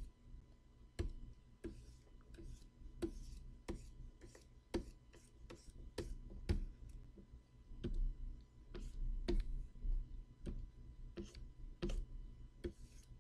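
Pen stylus on a Wacom Cintiq pen display, tapping and stroking across the screen during digital painting: irregular sharp ticks, one to three a second, with faint scratchy strokes between some of them.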